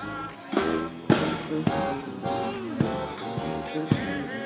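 Music with a steady drum beat and pitched instruments.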